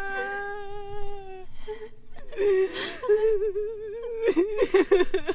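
A person's voice holding long, sustained notes whose pitch wavers, broken by short pauses, crying or keening rather than speaking.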